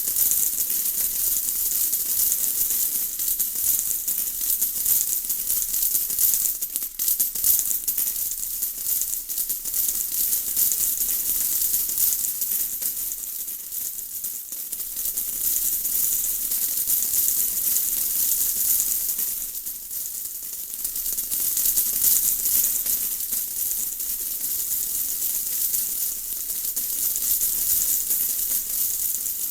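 Steady rain: a dense, bright patter of many small drops with fine ticking, easing briefly twice.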